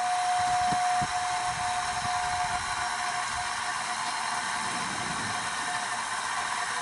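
Refrigerant recovery machine running steadily with a hissing rush, pulling refrigerant out of a heat pump; a steady high tone sounds over it for the first two or three seconds, then fades.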